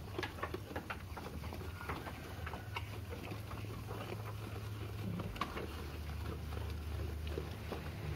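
Merino sheep eating fresh-cut grass from a trough: an irregular run of crisp crunching, tearing and rustling as they pull and chew the grass, over a low steady hum.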